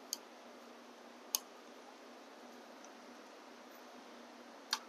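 Three small, sharp clicks from gloved hands handling the plastic light-switch and control housing on the handlebar: one right at the start, one about a second and a half in, and one near the end, over a faint room hiss.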